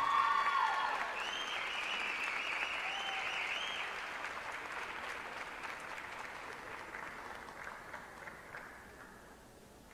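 Audience applauding and cheering with high whoops, the applause dying away gradually over several seconds.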